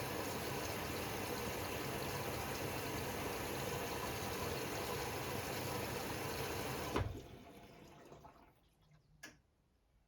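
Washing machine taking in water: a steady rush of water flowing into the drum, which stops abruptly with a click about seven seconds in as the water inlet valve shuts, leaving near silence with one small click near the end.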